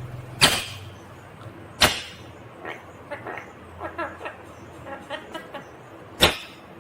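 Indian ringneck parrot giving three short, sharp shrieks, shortly after the start, about two seconds in and near the end, with soft chattering chirps between them.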